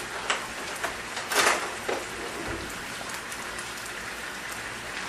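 Pork pieces sizzling steadily in a hot stainless steel pan as their skin is seared golden, with a few sharp spits and pops in the first two seconds.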